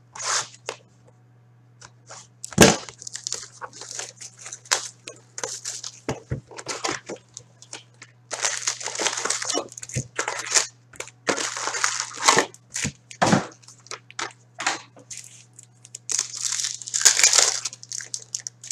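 Foil wrappers of Upper Deck Series 1 hockey card packs crinkling and tearing as the packs are handled and opened, in short bursts. Two sharp knocks, about three seconds in and again near thirteen seconds, from packs or the box set down on the table. A faint steady low hum underneath.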